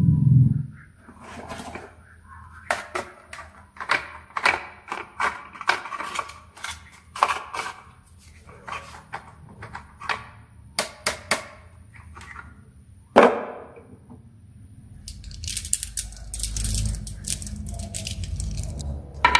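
Marbles clattering down a wooden HABA marble run: a long irregular string of sharp clicks and knocks, with one loud knock about thirteen seconds in, then a steady rumble through the last few seconds.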